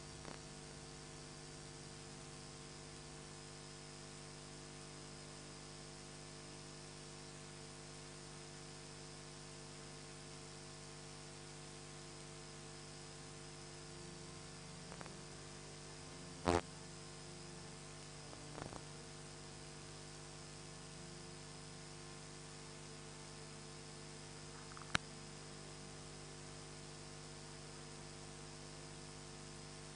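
Steady electrical hum made of several constant tones, broken by a few brief clicks or knocks, the loudest about halfway through and a sharp one near the end.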